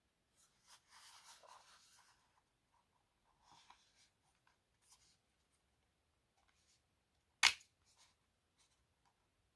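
Hands handling the compressor kit and its packaging: soft rustling and rubbing twice, a few faint ticks, and one sharp click about seven and a half seconds in, the loudest sound.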